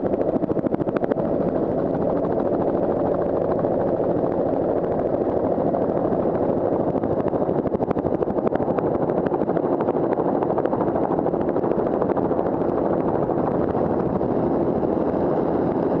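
Bell 206 JetRanger helicopter in flight, heard from on board: the main rotor's steady rapid beat over the running turbine.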